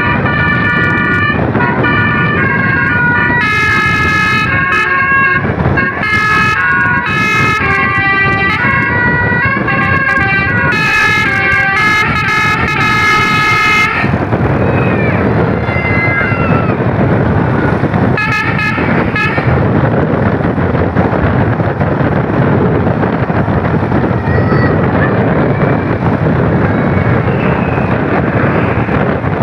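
Bus's Basuri 'telolet' multi-trumpet horn playing a rapid melody of stepped notes, stopping abruptly about halfway through. Steady rushing road and wind noise carries on after it.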